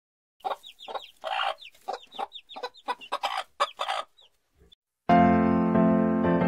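Hens clucking in a quick string of short calls for about four seconds. About five seconds in, piano music starts abruptly.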